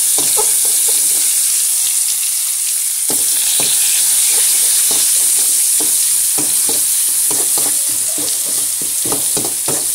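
Ground spice paste sizzling in hot oil in a metal wok, a steady loud hiss, with the metal spatula scraping and knocking against the pan as it is stirred, the strokes coming thick and fast from about three seconds in.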